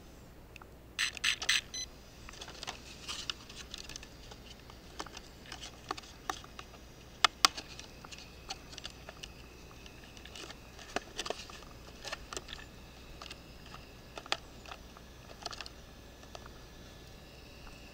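Plastic clicks, taps and scrapes as an RC car body is handled and pressed onto its chassis by hand. There is a louder rattling cluster about a second in and two sharp clicks about seven seconds in.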